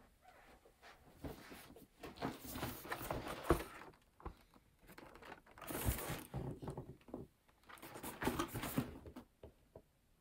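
Shoes and a shoebox being handled: irregular rustling and scraping in stretches, with a few sharp knocks, the loudest about a third and about halfway through.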